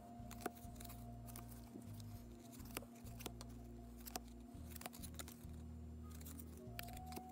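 Quiet background music with sustained low notes, with irregular light clicks of baseball cards being flipped through.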